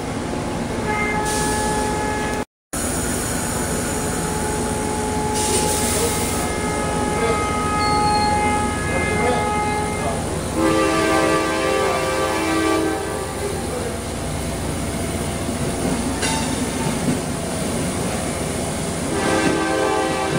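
Amtrak passenger train rolling past with a steady rumble, over it shrill metallic squealing from the cars' running gear that starts and stops at several pitches. The sound cuts out completely for a moment about two and a half seconds in.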